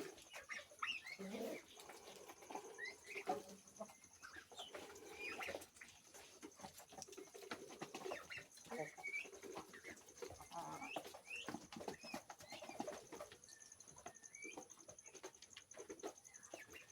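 Chickens clucking and peeping softly while they feed, a scatter of short low clucks and brief rising chirps, with many small clicks among them.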